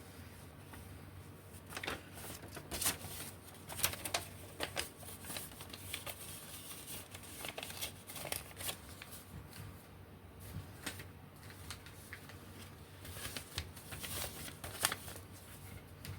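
Paper and small plastic kit parts being handled: irregular rustling with light clicks and taps.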